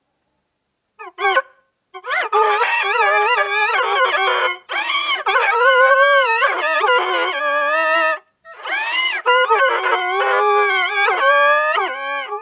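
Cartoon character crying: long, high-pitched wailing sobs with a wavering pitch, in several stretches broken by short gaps about four and a half and eight seconds in.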